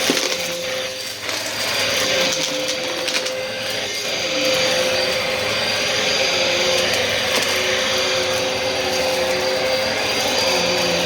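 Bissell vacuum cleaner running steadily: a constant motor whine over rushing air, with a lower tone that wavers up and down in pitch. A few brief clicks come in the first few seconds.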